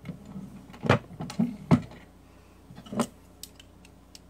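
Single-stage reloading press worked to seat a bullet in a 224 Valkyrie case: a run of metal clunks and clicks in the first two seconds and one more knock about three seconds in. A few light clicks follow as the loaded round is handled with calipers.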